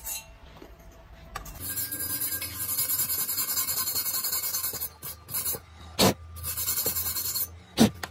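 Hand wire brush scrubbed back and forth over stick-weld tacks on steel square tube, cleaning the welds: two spells of rapid scratchy strokes. A sharp knock falls between them, and a louder one near the end.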